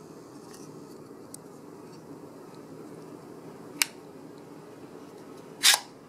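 Two sharp clicks of a latch plunger snapping into place as plates are worked by hand, the second louder, over a steady low hum.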